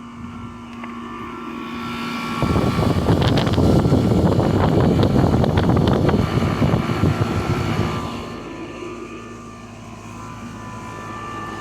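Older outdoor air-conditioning condensing unit running just after kicking on, its fan and compressor humming steadily. A loud rushing noise swells in from about two seconds in and fades out around eight seconds.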